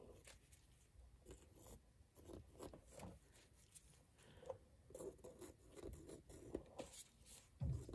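Near silence with faint, scattered small scrapes and taps: a wooden skewer working wet acrylic paint on a canvas.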